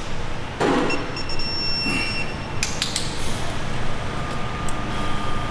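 Hand tools clicking and knocking against an engine under reassembly, a few separate metal clicks over a steady low workshop rumble.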